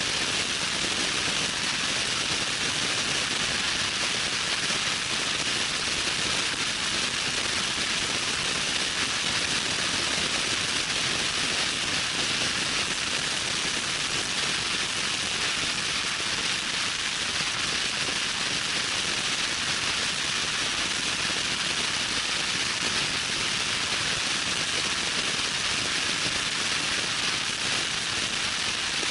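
Loud wind noise rushing over the camera microphone from a vehicle moving at high speed: a steady, unbroken hiss that covers any engine sound.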